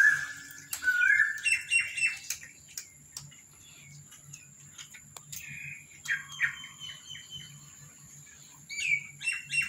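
Small birds chirping in short clusters of high, quick notes: about a second in, again around six seconds, and near the end.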